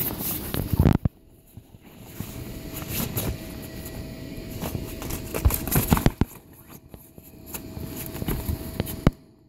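Dogue de Bordeaux puppy's paws thumping and scuffing on the inflated vinyl of a bounce house, in scattered knocks, over a steady drone from the bounce house's air blower.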